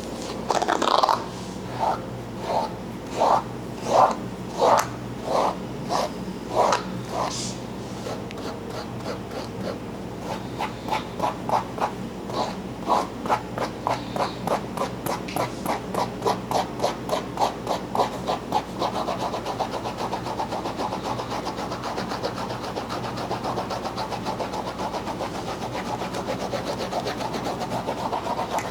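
Rhythmic rubbing strokes of a head massage. They start slow, about three strokes every two seconds, quicken about a third of the way in, and turn to a fast, nearly continuous rubbing in the last third.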